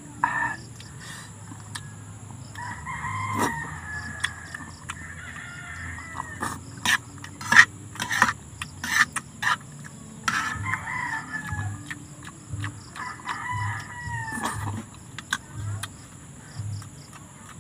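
A rooster crowing three times, each crow lasting about two seconds. Sharp clinks of a metal spoon and fork against a metal pan sound between and under the crows.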